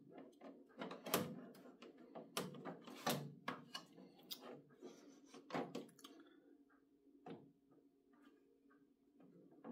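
Sharp plastic clacks and knocks as a Brother laser printer's rear paper-guide panel is handled and fitted back into place, several in the first six seconds, then fewer and softer.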